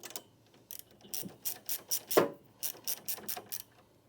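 Ratchet wrench clicking in short runs as the transfer roller's mounting bolts are tightened, with one heavier knock a little past halfway.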